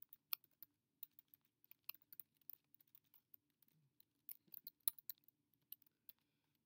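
Faint, irregular keystrokes on a computer keyboard as a few words are typed.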